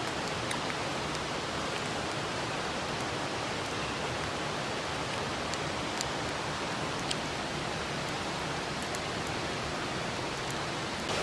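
Mountain stream rushing steadily over rocks, with a few faint, short clicks.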